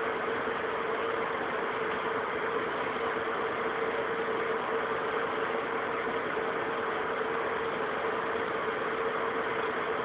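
Steady whirring of a small motor with a constant hum.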